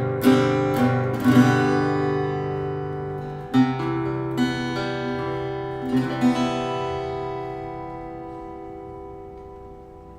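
Seagull Entourage Rustic Grand compact acoustic guitar, solid cedar top with wild cherry back and sides, strummed in open chords. There is a chord change partway through, then a final chord is left to ring out and fade.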